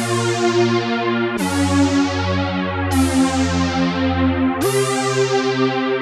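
u-he Tyrell N6 software synthesizer playing its 'First Seventh' preset through TAL-Chorus-LX: four held chords, changing about every one and a half seconds. Each chord starts bright and grows duller, with an even pulsing in the tone.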